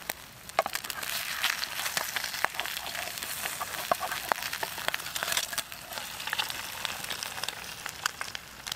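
Egg frying in oil in a frying pan over a small wood stove: a steady sizzle with frequent small pops and spits.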